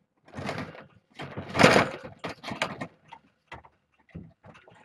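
Household handling noises as someone comes into the room: two rushing, rustling sounds in the first two seconds, the second the loudest, then a run of short knocks and taps of footsteps and things being moved.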